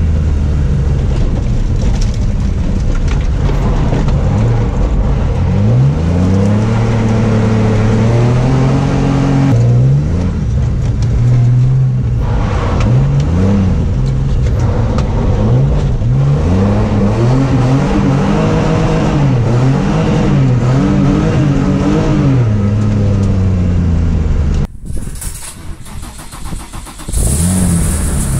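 BMW E30's M30B35 straight-six engine revving hard under racing load, its pitch climbing and falling again and again through the gears. The engine sound breaks off briefly near the end, gives way to a quieter sound, then comes back.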